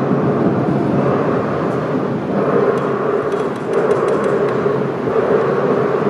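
Loud, droning electronic noise music from a live set, a thick steady rumble with a mid-pitched hum that swells and eases in waves.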